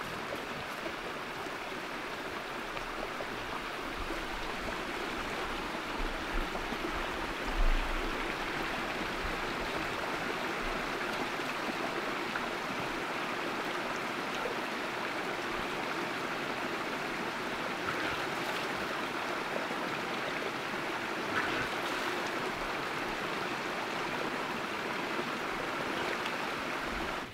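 A stream's flowing water, a steady rush without pause, with a brief low bump about eight seconds in.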